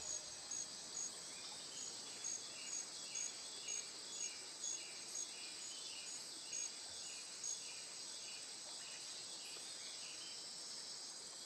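Night-time cricket ambience: a cricket chirping steadily, about two chirps a second, stopping about seven seconds in, over a steady high insect drone.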